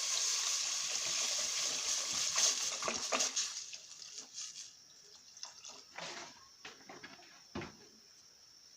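Water being poured into a hot pot of sautéed meat and vegetables: a steady rushing, splashing hiss that stops about three and a half seconds in. It is followed by a few light clinks and a knock near the end.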